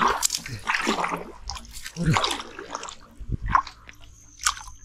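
Small splashes and drips of swamp water with a few sharp clicks and low thuds. A thin high steady whine comes in about four seconds in.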